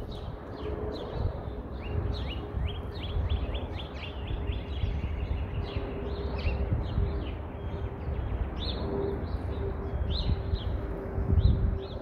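Songbirds chirping and singing, several calls overlapping, with a quick run of repeated chirps a few seconds in. A low rumble and a faint steady hum lie underneath.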